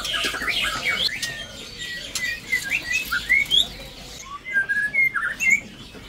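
White-rumped shama chirping and whistling: a string of short, varied notes, some sliding up and some down, busiest in the first second.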